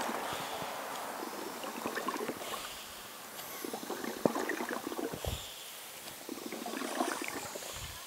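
Foot pump of a portable pressure shower being pressed by hand, stroke after stroke, pushing air into the filled water bag to pressurize it.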